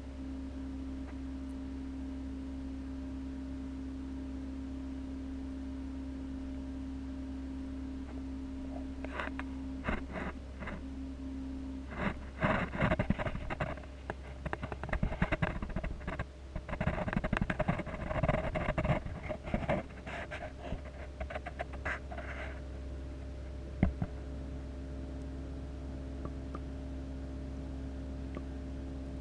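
Steady hum of reef-aquarium equipment, heard from a camera in the water. About nine seconds in, a run of irregular clattering clicks and scrapes starts and goes on for some thirteen seconds, louder than the hum, with one more sharp click a little after it stops.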